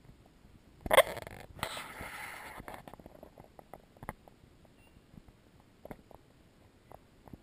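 A canoe paddle splashes through the water about a second in, with a brief rush of water, then scattered small drips and light knocks against the canoe.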